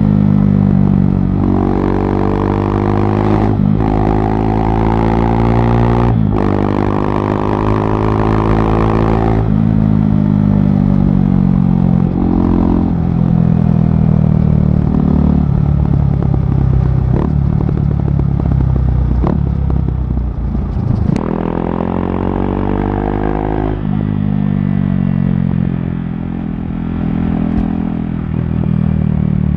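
KTM RC390's single-cylinder engine through a barrel exhaust with the dB killer removed, accelerating hard through the gears: the pitch climbs and drops sharply at each of three shifts in the first ten seconds. It then runs lower and more evenly and pulls up again a little past the middle.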